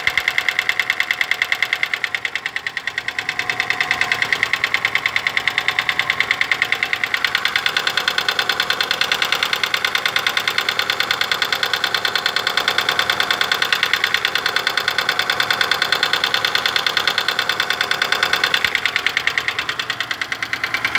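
Daewoo Lanos engine running steadily with a rapid, even ticking from the valvetrain: the knock of its AE-brand hydraulic valve lifters.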